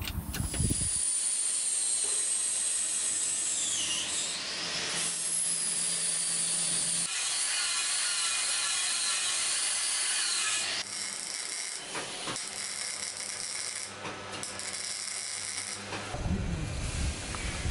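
Angle grinder grinding a steel wheel rim: a steady high whine over a hiss that dips in pitch about four seconds in as the disc is pressed into the metal, then recovers. About eleven seconds in the sound changes to a rougher, uneven texture.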